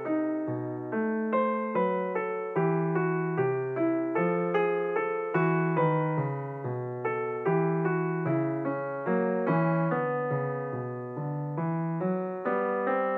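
Background piano music: a slow, even run of single notes and chords.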